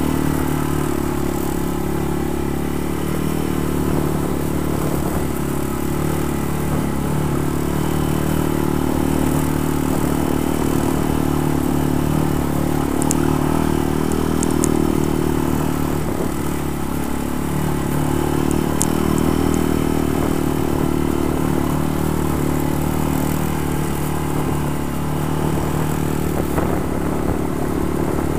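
ATV engine running steadily at an even pitch while riding, with light clatter from the machine.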